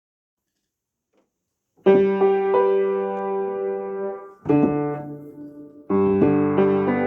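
Piano music that starts after about two seconds of silence: a held chord, a second chord, then a fuller run of notes near the end.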